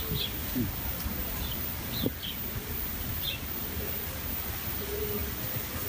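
Small birds chirping a few times, with short low cooing notes from a dove.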